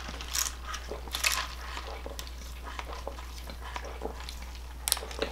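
Sipping a soft drink through a plastic straw from a fountain cup: a few brief, soft slurping noises over a low steady hum.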